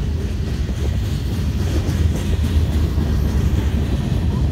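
A freight train's cars rolling past close by: a steady, heavy low rumble of steel wheels on the rails, with a few faint knocks over it.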